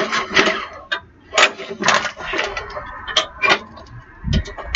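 Recoil starter of an old Weed Eater walk-behind lawn mower being pulled several times in quick succession, the engine cranking over with each pull while it is checked for spark with an inline spark tester.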